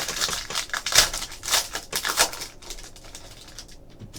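Trading cards and their packaging being handled: a dense run of crinkling and clicking for about two and a half seconds, then a few lighter clicks.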